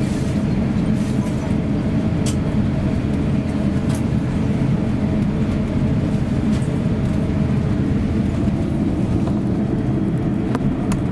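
Cabin noise of an Airbus A350 taxiing: a steady low rumble from the Rolls-Royce Trent XWB engines at taxi power and the aircraft rolling, with a few light clicks or knocks scattered through it.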